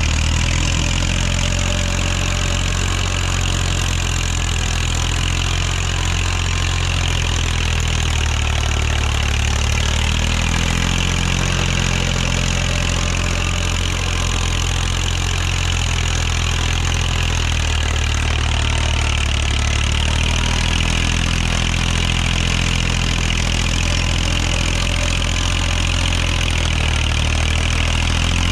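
A TAFE tractor's diesel engine running steadily under load as it drives a rear-mounted rotary tiller through the soil, with a constant higher hiss on top. The engine note dips slightly a couple of times.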